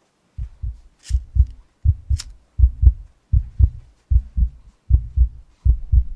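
Heartbeat sound effect: a steady low double thump, about eighty beats a minute, starting about half a second in. About one and two seconds in come two brief scratchy hisses, the flint wheel of a lighter being struck.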